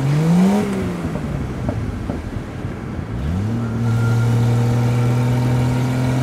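2-litre Triumph Vitesse straight-six engine of an open roadster on the move: its revs rise and fall near the start, then climb again about three seconds in and hold steady under throttle, over a hiss of wind and wet-road noise.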